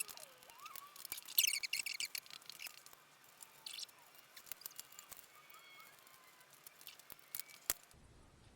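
Light handling noises of plastic parts and wiring being worked into place: scattered small clicks and short rustles, the longest rustle about a second in and lasting about a second.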